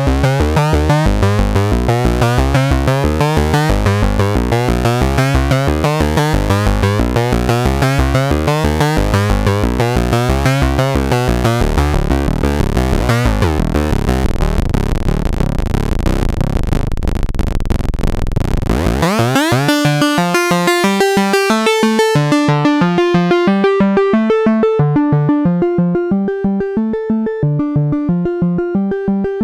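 Moog Subsequent 25 analog synthesizer playing its sequenced 'Embalmed Bass' patch: a fast repeating pattern of heavy bass notes. About two thirds of the way through the low end drops out suddenly and the sequence goes on as thinner, cleaner notes higher up, fading near the end.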